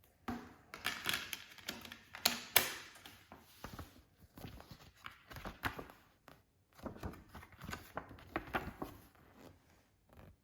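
Hands handling and opening packaging: a run of clicks, taps and rustles in two spells, with a short pause about six seconds in.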